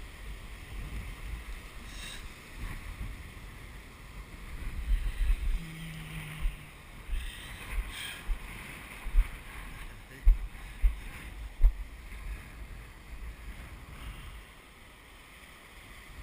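Wind buffeting the microphone in irregular gusts, with a few sharp blasts about ten to twelve seconds in, over a steady wash of heavy ocean surf.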